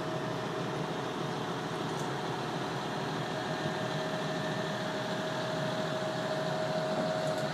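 Tractor engine running steadily at the boat ramp, with a steady whine over it.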